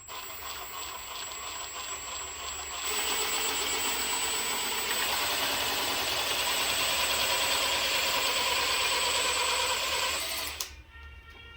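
A power tool runs steadily, with a hard, rattly mechanical sound. It gets louder about three seconds in and stops short near the end.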